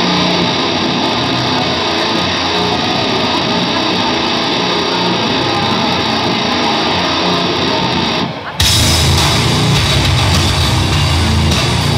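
Loud rock walk-out music over the arena PA. About eight seconds in it breaks off for a moment and comes back fuller, with heavier bass.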